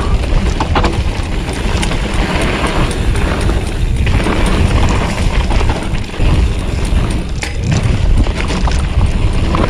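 Polygon Siskiu T8 mountain bike ridden fast down a dirt trail, heard close up: wind buffeting the microphone and tyres rolling over dirt, with the bike rattling and knocking sharply over bumps.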